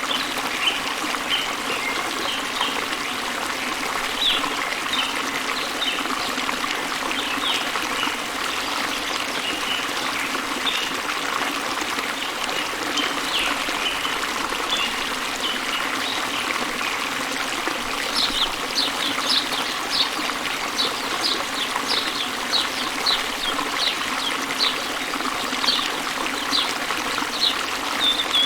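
Steady rush of falling water from a waterfall, with small birds chirping over it; in the last ten seconds a bird gives a quick run of short high chirps.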